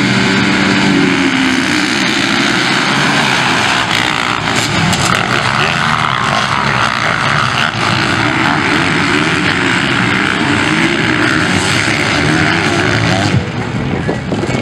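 A pack of motocross bikes revving hard at the start gate, then accelerating away together in a dense, loud engine din. The sound drops abruptly near the end.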